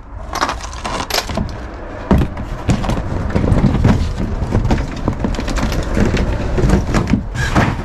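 Irregular knocking and clattering of Plexiglas roof panels and wooden roof frame being handled and taken down, over a low rumble.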